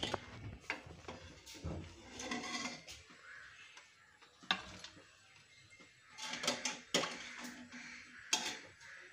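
Scattered clinks and knocks on a steel plate as pressure-cooked beef rib pieces are set down on it.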